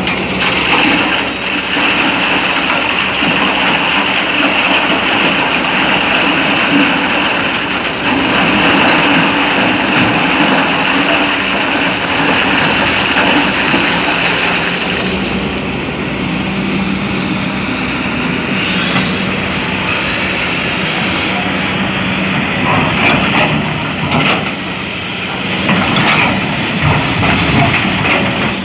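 Excavator's diesel engine and hydraulics running steadily under load, with a constant high whine over the first half. From about two-thirds through, irregular knocks and clatter join in.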